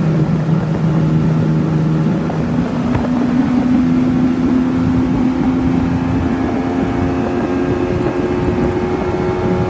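Motorboat engine running under way, its steady note stepping up in pitch about two seconds in and shifting again near the end, over constant wind and water noise.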